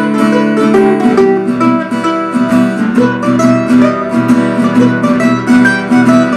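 Acoustic guitar strumming chords while a second plucked stringed instrument picks notes over it, in a steady rhythm.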